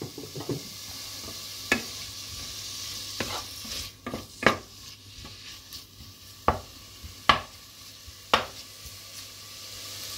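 Bacon sizzling in a hot pan, a steady high hiss, while a utensil stirs it, giving several sharp knocks and scrapes against the pan.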